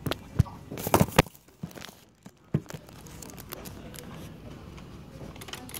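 Handling noise on a phone's microphone. A few sharp knocks and rubbing come in the first couple of seconds as the phone is turned around in the hand, then it settles to a faint steady background.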